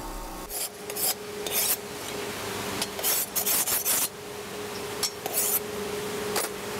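Hand file rasping across a forged steel blade held in a vise. Several short strokes come irregularly, some single and some in quick runs.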